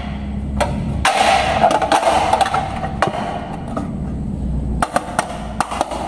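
Marbles rolling along a wooden marble run, clacking sharply against the wooden track pieces as they drop and bounce, over a steady low rumble of rolling.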